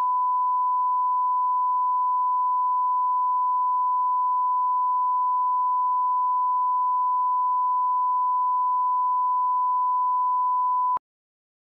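Steady 1 kHz line-up test tone played with broadcast colour bars, one unbroken pure beep at constant level, cutting off abruptly with a small click near the end.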